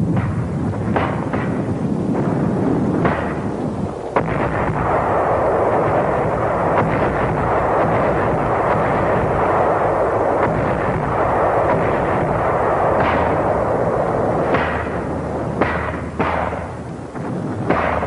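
Artillery barrage mixed with gunfire: a dense, continuous rumble of fire, with sharp single shots and blasts cracking out in the first few seconds and again, more spaced, through the last few.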